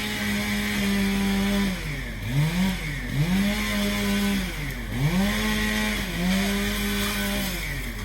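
Two-stroke chainsaw revved to full throttle and let back repeatedly. It holds a steady high pitch for a second or two at a time, then drops and climbs again, about five times.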